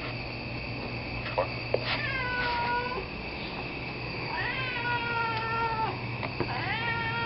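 A cat meowing in three drawn-out, even-pitched calls of about a second each, over a steady low hum and a few sharp clicks.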